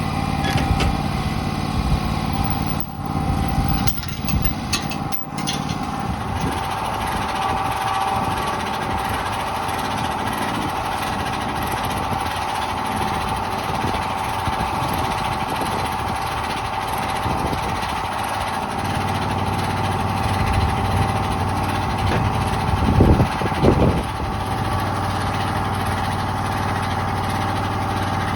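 Wood-Mizer LT28 portable band sawmill running: its engine drones steadily under a constant high whine. A deeper hum joins about two-thirds of the way through, and two loud knocks come near the end.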